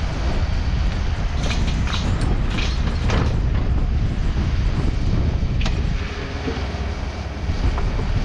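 Takeuchi TB260 mini excavator's diesel engine running steadily as it digs, with a few sharp clanks and scrapes of the bucket about one and a half to three seconds in and one more a little past halfway.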